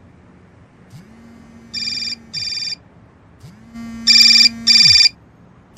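Electronic phone alarm tone going off: two pairs of short, high beeps, the second pair louder, each pair over a low buzz that swells in and sinks away.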